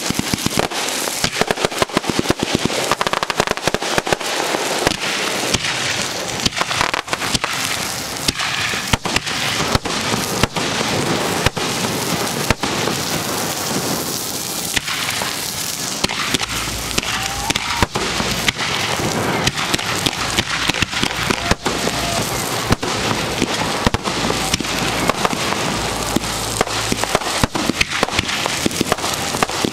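Aerial fireworks shells launching and bursting at close range: a dense, unbroken run of sharp bangs with crackling between them.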